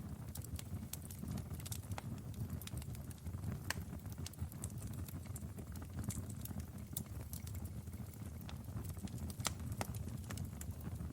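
Wood fire burning in a fireplace, crackling and popping irregularly over a low, steady rumble of flame, with a louder pop near the end.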